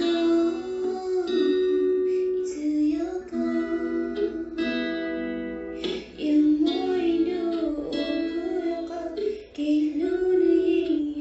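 A song: a high voice singing a slow melody over guitar accompaniment.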